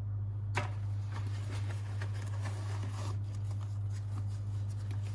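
Packaging and small drone accessories handled: light rustling and small clicks, with one sharp click about half a second in, over a steady low hum.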